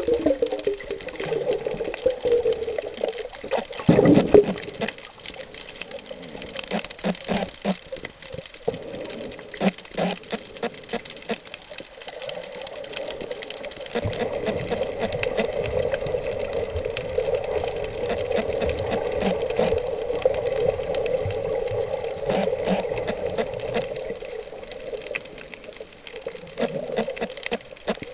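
Underwater sound picked up by a submerged camera: a dense scatter of sharp clicks and crackles over a steady muffled rush. There is a louder knock about four seconds in.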